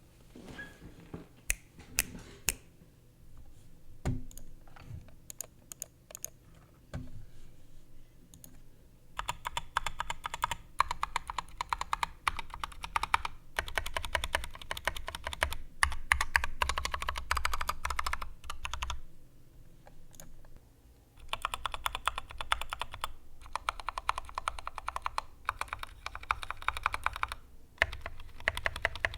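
Mechanical keyboard with Kailh Polia tactile switches being typed on: a few scattered keystrokes at first, then fast continuous typing about a third of the way in, a brief pause, and another run of fast typing.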